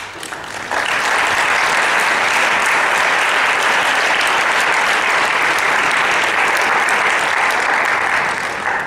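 Audience applauding: a few scattered claps at first, swelling to full, steady applause within the first second, then dying away near the end.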